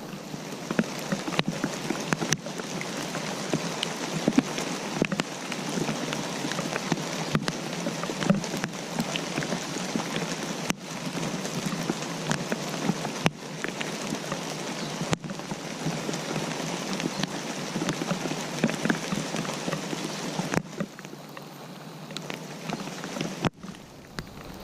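Steady rain falling, a dense run of many small drop impacts on a surface. It swells in over the first second and eases a little a few seconds before the end.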